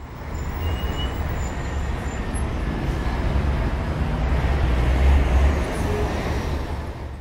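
A low rumbling wash of noise, with no distinct strikes or beat, that swells in, peaks about five seconds in, then fades.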